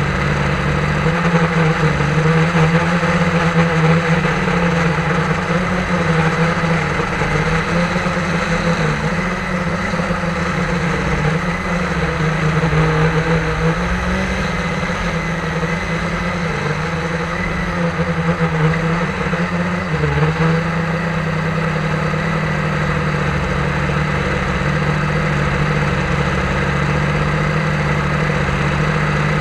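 Quadcopter drone's electric motors and propellers humming steadily in flight. The pitch wavers slightly as the motors adjust speed.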